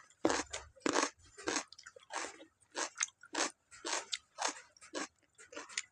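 A person chewing and biting into a chicken piece, in a steady run of short chews a little under two a second.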